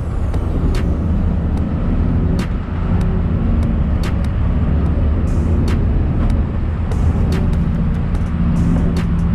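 Motor vehicle running: a steady low rumble with a hum, and scattered sharp ticks throughout.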